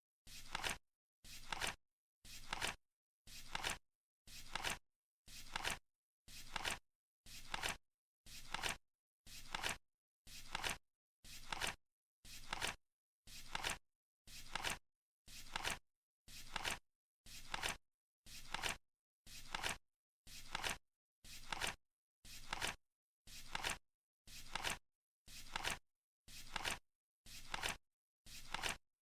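Flip clock card flipping over once a second as it counts down: a short rustle ending in a sharp snap, repeated evenly, with silence between.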